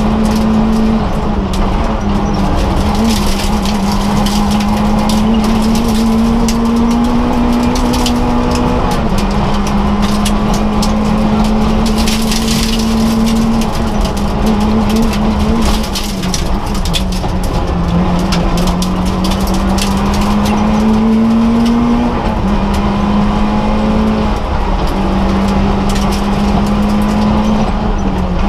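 Citroën AX rally car's four-cylinder petrol engine driven hard, heard from inside the cabin, its pitch climbing slowly and dropping back several times as it changes gear. Frequent short knocks and rattles from the car run over the engine.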